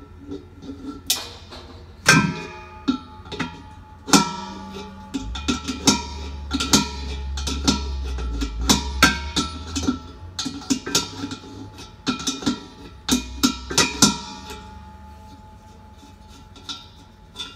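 Background music of plucked string notes, guitar-like, struck one after another and ringing on, with a low bass underneath for a few seconds in the middle.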